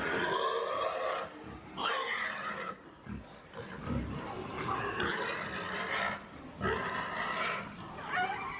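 Pigs squealing, in repeated loud cries about a second long that come every second or two.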